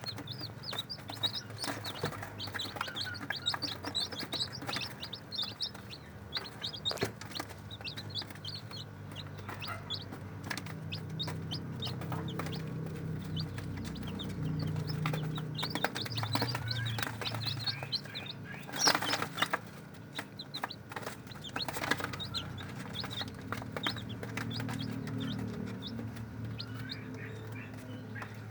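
Day-old ayam kampung super chicks peeping: many short, high cheeps in quick succession. A lower steady sound runs underneath from about ten seconds in, and there is a brief loud knock about nineteen seconds in.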